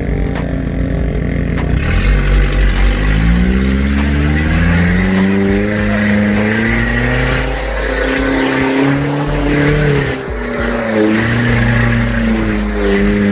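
Off-road vehicle engine revving under load: its pitch climbs from about two seconds in, holds, drops off briefly about ten seconds in, then picks up again.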